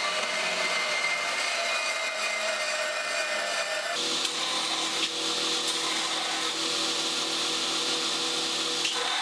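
A portable bandsaw cutting thin sheet metal, then, from about four seconds in, a belt grinder running with a steady hum and hiss as a small piece of sheet metal is held to the belt.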